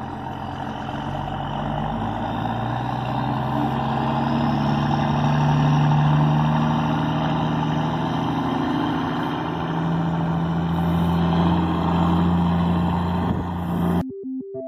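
Heavy diesel engine of construction equipment running under load, its pitch climbing and falling back twice as it revs. It cuts off suddenly near the end, giving way to synthesizer music.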